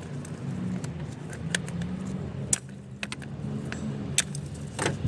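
Metal tools clicking and clinking against the oil filter housing cap of a supercharged V8 as it is worked loose, five sharp clicks over a steady low hum.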